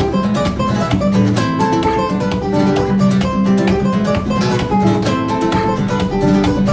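Background music: acoustic guitar playing quick strummed and plucked notes.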